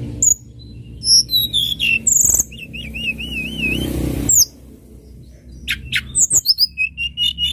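Tledekan gunung songbird singing: high whistled notes and chirps, with a wavering, warbling phrase about two to four seconds in and a run of quick sharp chirps near the end, over a low background rumble.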